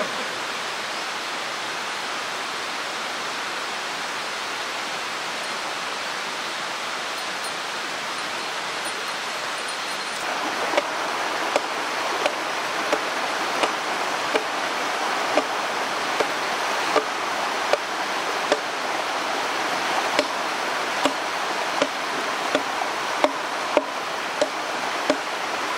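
Mountain stream rushing steadily, growing a little louder about ten seconds in. From then on a regular series of short sharp knocks, about one every three-quarters of a second, sounds over the water.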